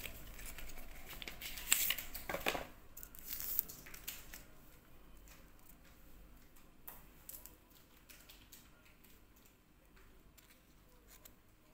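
Paperboard box being slid open and handled, rustling and scraping for the first few seconds, then quieter handling of a clear plastic tube of screwdriver bits with a few light clicks.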